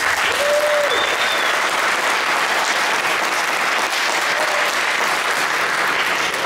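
Audience applauding steadily, welcoming a performing ensemble onto the stage.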